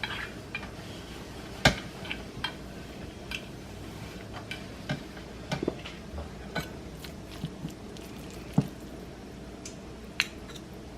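Scattered light taps, clicks and soft handling sounds of egg rolls being made by hand: a wet rice-paper sheet wiped with a towel, with dishes and utensils knocking lightly. The sharpest tap comes just under two seconds in.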